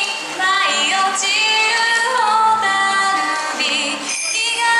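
Yosakoi dance music with a woman singing over the accompaniment; she holds a wavering note near the end.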